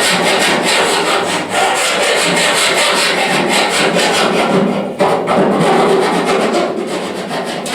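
Rapid back-and-forth abrasive rubbing strokes, about five or six a second, from hand work on the truck's rust-repaired bodywork, with a brief pause about five seconds in.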